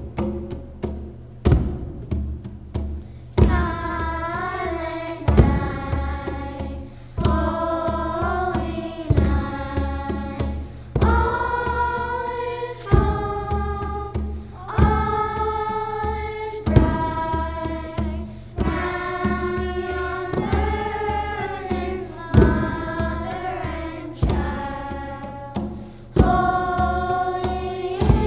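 Children's choir singing a song to the steady beat of three tall hand drums played with the hands. The drums play alone for about the first three seconds, then the voices come in over them.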